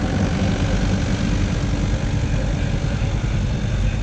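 Tractor engine idling, a steady low rumble.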